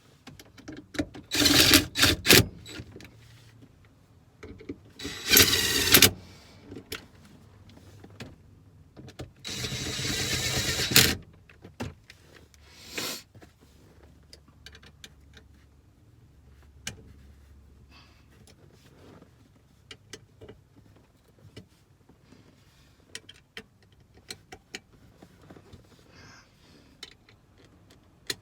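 A small power tool driving in the shifter base's mounting hardware in a few short loud bursts, the longest a steady run of about two seconds about ten seconds in. After that come scattered light clicks and taps of tools and parts.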